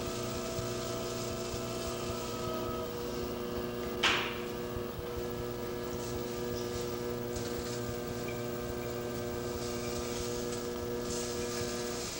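Electric potter's wheel motor humming steadily as the wheel spins. About four seconds in, one short sharp knock cuts through it.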